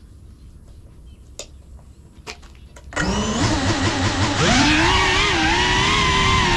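Low wind noise with a few faint clicks, then about three seconds in the brushless motors of a GEPRC Cinelog 35 ducted FPV drone spin up suddenly into a loud whine, its pitches rising and wavering as it lifts off.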